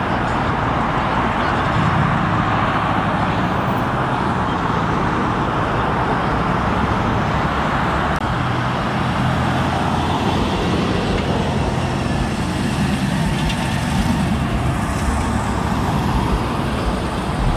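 Road traffic with car engines and tyres as cars drive past, a steady rumble with no single standout event.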